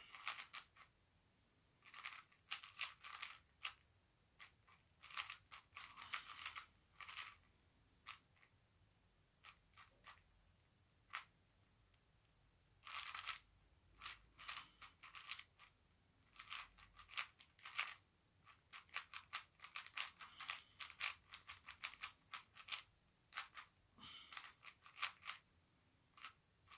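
A 4x4 puzzle cube being turned quickly by hand: bursts of rapid plastic clicks and clacks from the layer turns, broken by short pauses.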